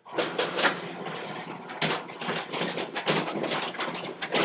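FPi4700 folder inserter starting up and running a job, feeding, folding and inserting paper into envelopes, with a dense, irregular clatter of clicks and clacks over a steady mechanical run.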